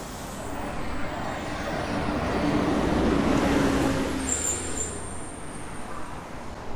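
A road vehicle passing by in city traffic: its noise swells to a peak about halfway through and fades away, with a brief high squeal shortly after the peak.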